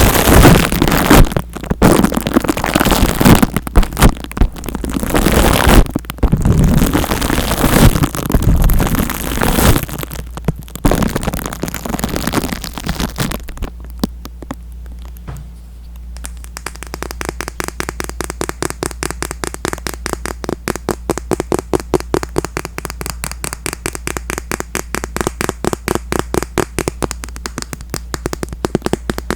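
Close-miked ASMR trigger sounds: loud crackling and rustling against the microphone for the first dozen seconds, then after a short lull a fast, even run of soft taps or scratches at about five a second.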